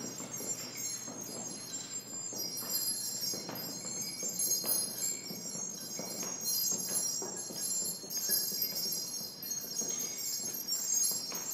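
Light metallic jingling and chiming: many high ringing tones overlapping and shimmering, over soft taps and rustles as hanging pieces are handled.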